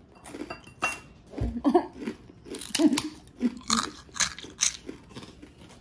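Crispy deep-fried pork skin (chicharon) being chewed with the mouth closed, a run of sharp, brittle crunches at irregular intervals.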